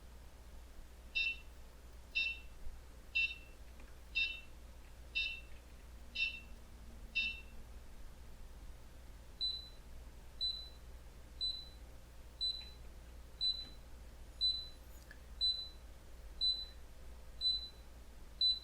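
A small electronic buzzer driven by an Arduino's tone() function gives short beeps about once a second. The beeps pause for about two seconds mid-way, then resume at a higher, purer pitch after the tone frequency is changed in the code.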